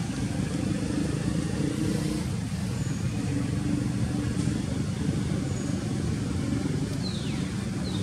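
Steady low engine hum, as of a motor running nearby, with a few faint high chirps sliding downward, the clearest about seven seconds in.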